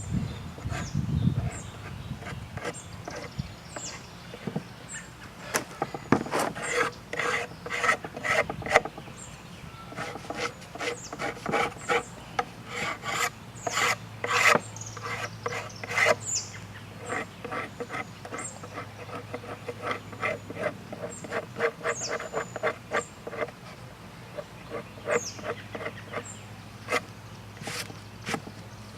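Hand scraper pushed in repeated short strokes over a wooden cabinet door, scraping off old finish that has been left to soften. The strokes come irregularly, some with a squeaky ring.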